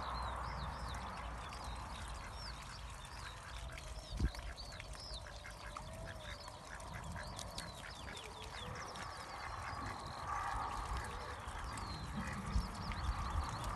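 Domestic ducks and geese bathing and preening at a pond: light water splashing and occasional quacks, with small birds chirping high and quick throughout and a low wind rumble.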